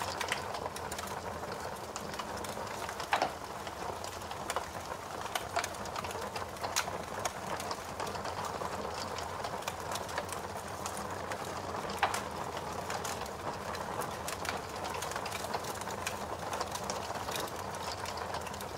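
Fire burning with a steady soft rush and scattered small crackles and pops; the loudest pops come about three seconds in and again about twelve seconds in.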